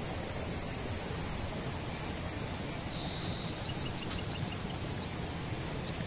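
Steady rushing of a small mountain stream. About three seconds in, a small bird gives a short high buzz followed by a quick run of about six high notes.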